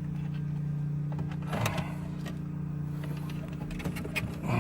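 Light clicks and taps of plastic interior trim and the car radio being handled and shifted, over a steady low hum.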